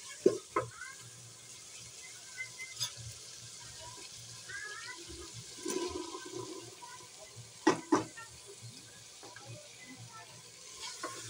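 A wooden spoon knocks against an aluminium cooking pot. About six seconds in, potato pieces and green peas are tipped into the pot of curry masala with a short, soft pouring rush, followed by two sharp knocks.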